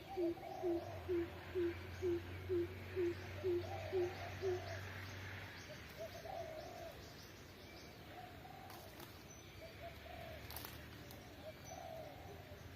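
Chickens clucking: a steady run of low clucks about twice a second that stops about four and a half seconds in, followed by softer, irregular clucking and murmuring with a few faint high peeps.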